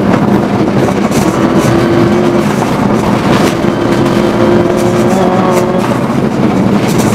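Rally car engine run hard, heard on board from inside the cockpit. Its pitch holds, then breaks and picks up again a few times as the car works through the gears.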